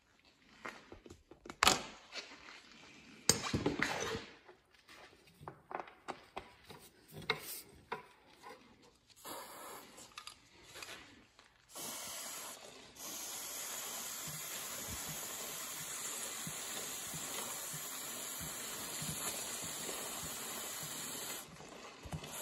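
A run of scattered knocks and clicks, then from about twelve seconds in the long steady hiss of an aerosol can spraying through its straw nozzle onto a dirt bike's drive chain.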